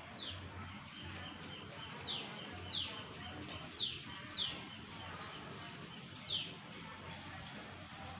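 A bird calling: about six short, high chirps, each a quick downward slide, mostly coming in pairs, over a faint steady hum.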